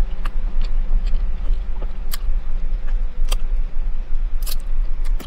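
Chewing a crunchy lettuce wrap close to the mic, with a few sharp crunches, over the steady low rumble of an idling car.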